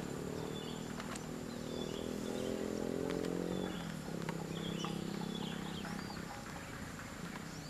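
Birds chirping in short repeated calls over a louder low droning hum that holds steady and shifts pitch once around the middle.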